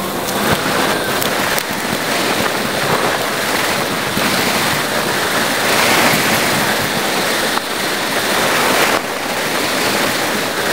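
Wind buffeting the microphone of a bike-mounted camera while cycling, a dense steady rushing hiss, on a recording sped up eight times.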